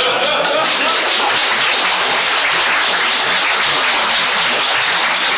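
Audience applauding, a dense steady clapping that carries on without a break.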